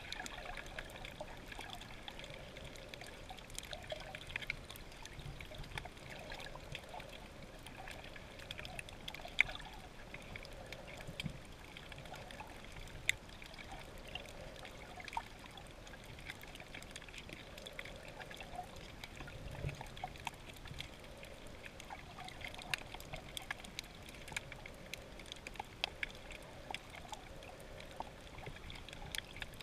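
Underwater sound picked up by a submerged camera over a coral reef: a steady, muffled water hiss dotted with scattered short clicks and crackles.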